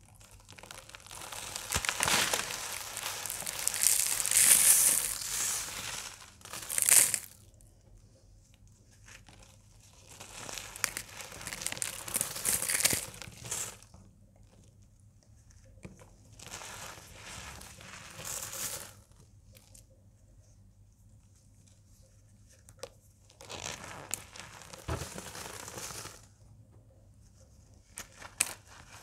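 Hands breaking and crumbling dried, dyed cornstarch blocks into powder: dry crunching and crumbling in about five bouts with quiet pauses between, loudest in the first several seconds.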